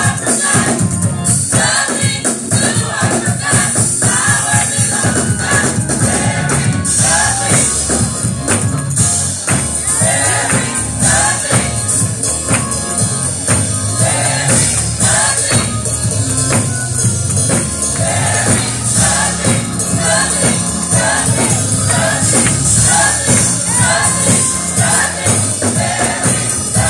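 Gospel choir singing with rhythmic percussion accompaniment and a steady high jingling beat.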